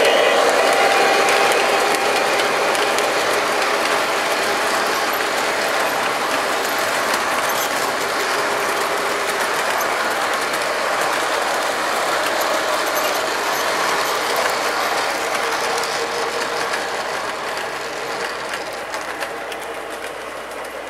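O-gauge model train running along the layout track, a steady grinding of motor gears and wheels on the rails that slowly grows fainter over the last few seconds.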